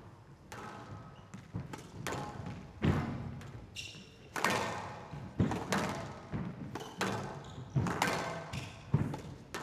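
Squash ball being struck back and forth in a fast rally: a string of sharp racket hits and ball impacts on the walls, about one or two a second, each with a short ring.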